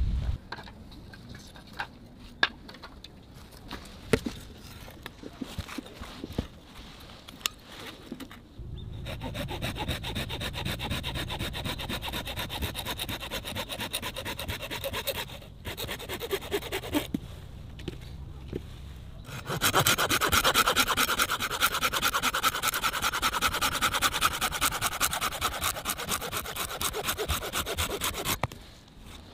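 Hand saw cutting through a branch resting on a wooden stump, in steady back-and-forth strokes. The sawing gets louder about two-thirds of the way in and stops near the end as the cut goes through. Before the sawing starts there are scattered clicks and knocks.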